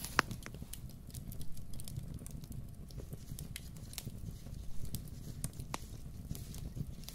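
Hands working a split wooden stick and a rope: scattered small clicks and crinkles over a steady low rumble.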